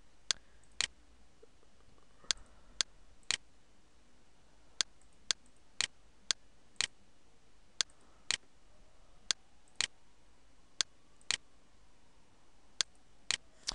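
Computer mouse clicking: about twenty sharp single clicks, mostly in short runs about half a second apart with brief pauses between runs.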